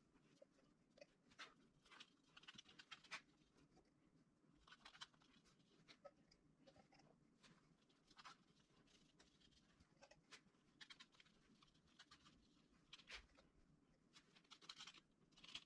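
Faint, irregular scratching strokes of a brush spreading contact cement along a channel.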